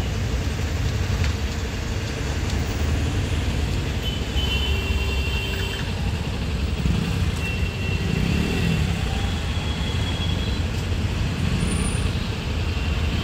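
Steady road traffic noise, a continuous low rumble of passing vehicles, with a few faint high tones partway through.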